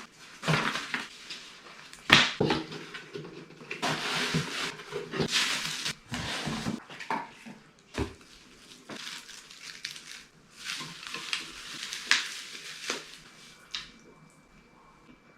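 Handling noise: irregular rustling and scraping, with sharp clinks and knocks of hard objects, the loudest knock about two seconds in.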